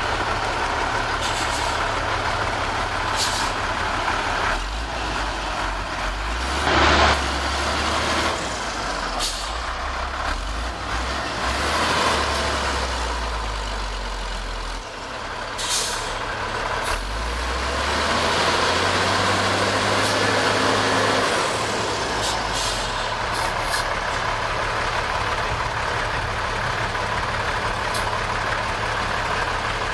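Heavy diesel earthmoving machinery running, its low engine note rising and falling as it works under load. Short hissing or clanking noises break in now and then, the loudest about seven seconds in.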